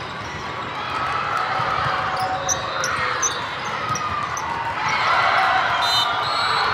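Echoing din of a large indoor volleyball tournament hall: many overlapping voices of players and spectators, with scattered ball thuds and short high squeaks from play on the surrounding courts, growing louder about five seconds in.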